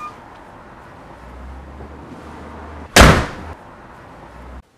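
A door slamming shut once, about three seconds in: a single sudden loud bang with a short ringing tail, over a low steady hum.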